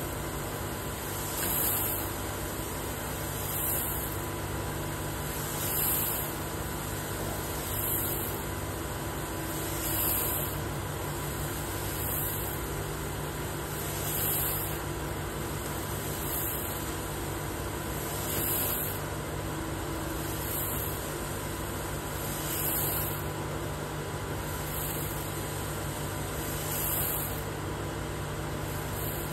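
Probatone P12 Series 2 coffee roaster running: a steady mechanical hum and rush, with a soft swish that comes round about every two seconds.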